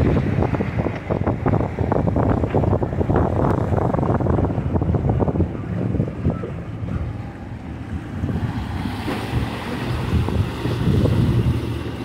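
Wind buffeting the microphone in gusts, heaviest in the first half, over choppy sea. Underneath runs the steady drone of an outboard-powered center-console boat running out through the chop.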